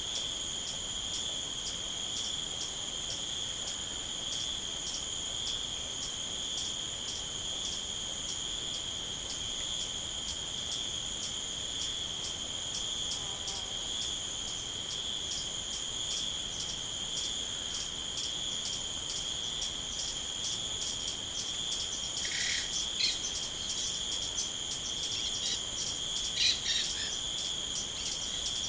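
Crickets trilling steadily in a high, continuous pulsing chorus. A few short bird chirps break in during the last third.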